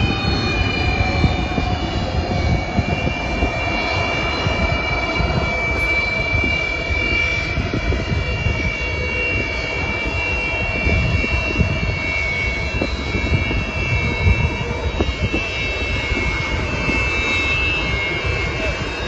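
Antonov An-225's six Progress D-18T turbofan engines running as the aircraft taxis, a steady jet whine with several high tones that drift slowly lower, over a continuous low rumble.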